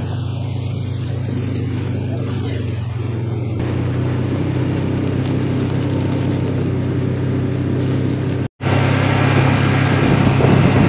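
A vehicle engine running steadily at an even pitch, with a cut to silence for a split second about eight and a half seconds in, after which it resumes with more rough noise over it.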